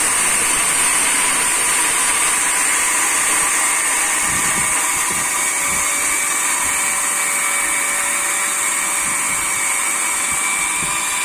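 Small electric spice grinder running steadily with a high whine, coarsely grinding whole black peppercorns.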